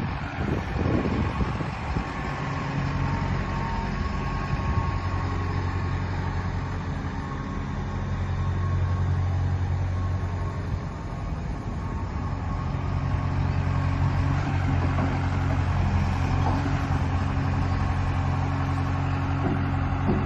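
Diesel engine of a 2019 JCB JS220L tracked excavator running steadily with an even, unchanging pitch, growing a little louder for a few seconds partway through. Uneven low rumbles are heard in the first two seconds.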